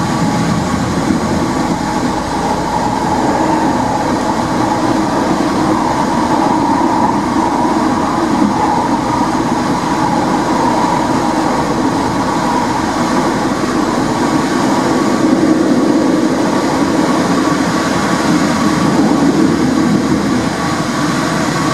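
Porto Metro light-rail vehicle running along the track at speed, heard from the front cab: a steady rolling rumble of wheels on rail with a steady hum over it.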